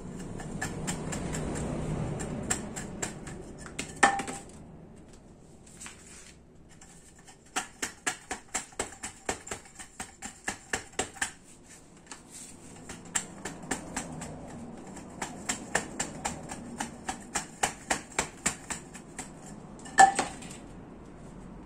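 A small wire-mesh basket, cut from a cheap instant grill's wire net and fitted over a wooden stick, being worked into shape: rustling and scraping of the metal mesh with two long runs of quick, even knocks, about three a second. Two ringing metallic clinks, about 4 s in and near the end, the second the loudest.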